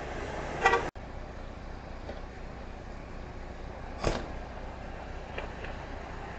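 Outdoor street ambience picked up by a security camera's microphone: a steady hiss of background noise, a short pitched toot about half a second in, then one sharp thump about four seconds in.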